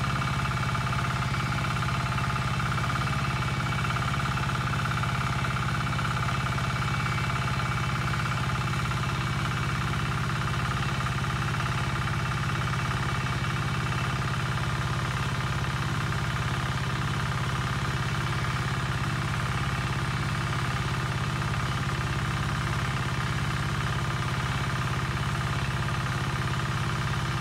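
A small engine running steadily at one constant speed, its hum never changing in pitch or level.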